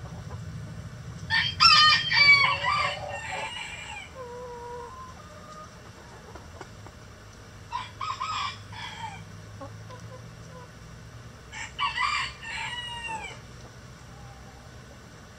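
Rooster crowing three times, with clucking hens: a loud crow about a second in, then two shorter ones near eight and twelve seconds in.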